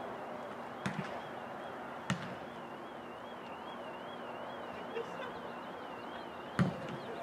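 American footballs being kicked off holds: sharp thuds of boot on ball, one about a second in, another about two seconds in, a faint one near five seconds, and the loudest near the end.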